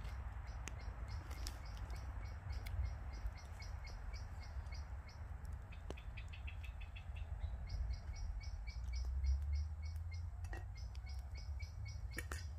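A small bird calling repeatedly: a fast, even series of short high notes, about four or five a second, over a low steady rumble.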